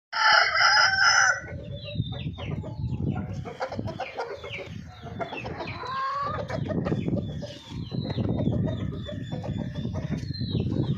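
Golden Misri chickens calling: a loud, drawn-out call opens the clip, followed by a run of short clucks and chirps over a low, steady rumble.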